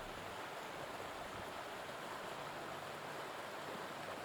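Steady rushing of a river, an even wash of flowing water.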